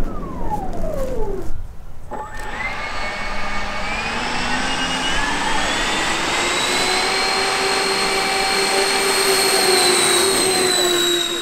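Electric ducted fans of a giant RC Airbus A380 model: a whine dropping steeply in pitch over the first second and a half, then after a break a layered whine of several tones rising together as the throttle opens for the takeoff roll, levelling off loud and steady at high power.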